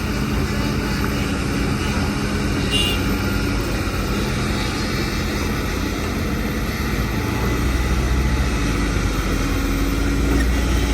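Diesel engines of heavy earthmoving machinery, a Hitachi excavator and dump trucks, running with a steady drone. A deeper rumble grows louder about seven seconds in, and there is a brief high chirp about three seconds in.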